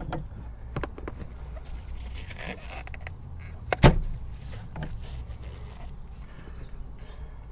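Small powder fire extinguisher being handled into a metal wire mounting bracket: light clicks and scrapes of the cylinder against the bracket, with one loud clunk a little over halfway in as it is pushed home, over a low steady rumble.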